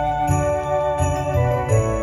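Background Christmas music with jingle bells ringing over a steady beat.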